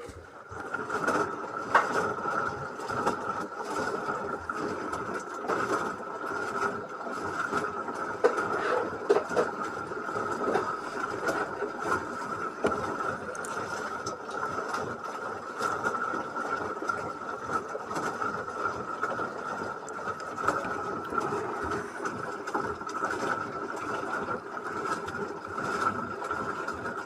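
LG washing machine running, starting up about half a second in: a steady motor whine with a lower hum, and small clicks and rattles from the drum turning.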